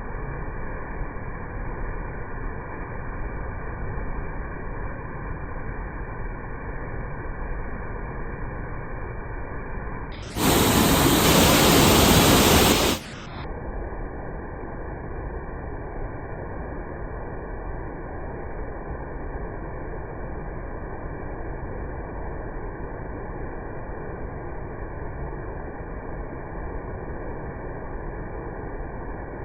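Steady, muffled rushing of a waterfall running high after a typhoon. About ten seconds in, a much louder and brighter rush cuts in for nearly three seconds, then stops abruptly.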